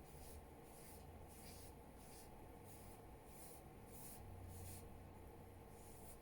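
Faint, repeated swishes of a paintbrush stroking paint onto canvas in short grass strokes, about two a second, over a low room hum.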